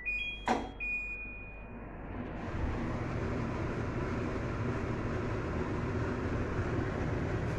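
Kitchen chimney (range hood) control panel beeping, with a click, as it is switched on; about two seconds in its exhaust fan starts and runs steadily.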